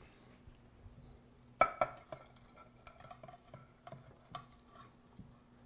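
A stainless-steel skillet clinking and scraping against a ceramic serving platter as pad thai noodles are slid out of it. Two sharp clinks about a second and a half in are the loudest, followed by lighter taps and scrapes.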